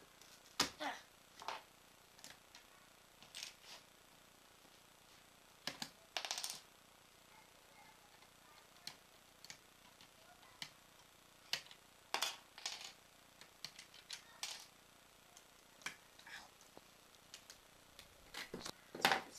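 Lego bricks being pried apart and handled: irregular sharp plastic clicks and snaps, with a short rattling scrape about six seconds in.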